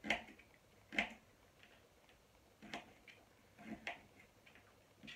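Kitchen knife chopping carrot into cubes on a plastic chopping board: about five separate knife strikes on the board, unevenly spaced roughly a second apart.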